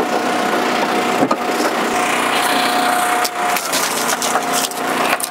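Oversized red oak round being forced through an Eastonmade commercial log splitter's box wedge, the wood cracking and splintering with several sharp cracks. Behind it the splitter's power unit runs with a steady whine.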